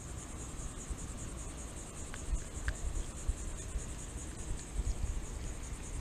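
Insects chirping in a steady high pulsing trill, over a low rumble and a few faint clicks.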